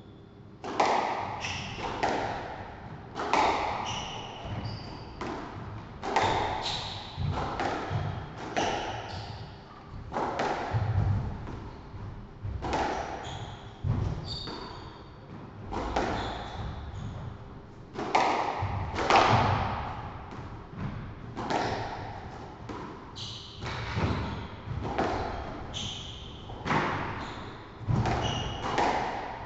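A squash rally: the ball cracks off rackets and the court walls again and again, about once a second, each hit echoing round the court, with short high squeaks of shoes on the wooden floor between the hits.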